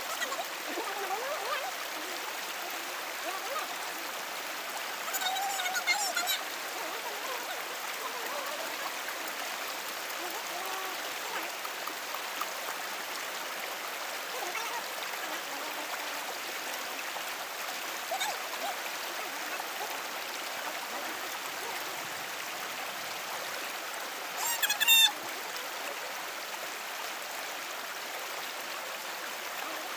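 Steady rush of flowing stream water. Two brief louder sounds cut in, one about five seconds in and another shortly before the end.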